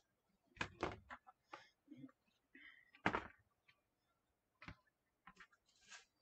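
Ribbon rustling and crinkling in irregular short bursts as a bow is gathered and handled, with scissors working the ribbon and a sharper knock about three seconds in as the scissors are laid on the plastic cutting mat.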